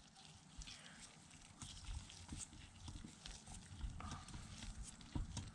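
Faint, irregular clicks and taps of a T20 Torx screwdriver turning a screw back into a window regulator motor housing by hand.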